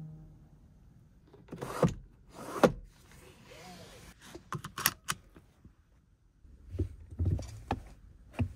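Scattered clicks and short knocks of handling inside a car interior, with deeper soft thumps in the last two seconds as a foot works the pedal.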